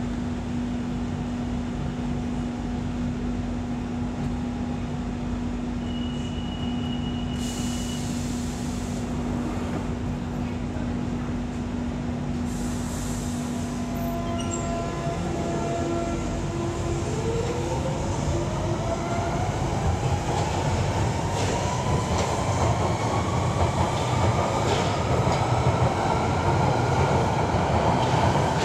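Central Line 1992 Stock tube train standing at the platform with a steady electrical hum and two short hisses of air, then pulling away: its traction motors give a whine that climbs steadily in pitch as it accelerates, over a growing rumble of wheels on rail.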